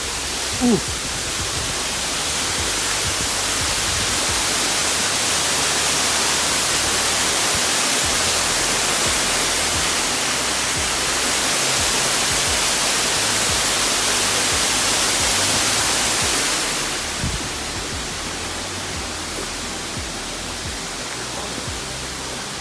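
Waterfall rushing steadily into a deep plunge pool: an even hiss of falling water that swells about two seconds in and eases off somewhat near the end.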